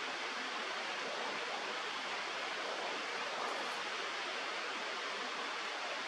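Steady rush of flowing river water, an even hiss with no separate splashes or calls.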